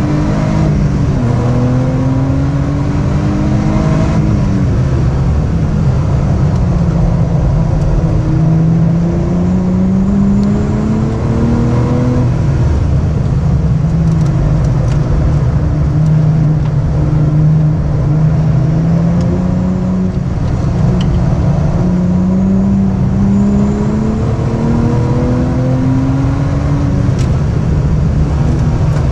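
Lotus Exige V6's supercharged 3.5-litre V6 engine pulling hard on track, its pitch climbing for several seconds at a time and then dropping away, several times over.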